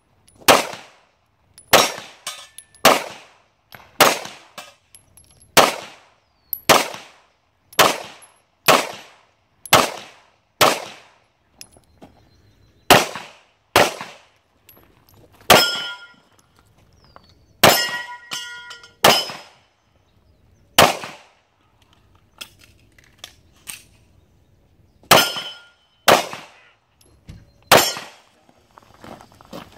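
Handgun fired shot after shot, roughly one a second and about twenty shots in all, with a pause of some four seconds about two-thirds of the way through. Several hits ring out on steel targets with a metallic clang.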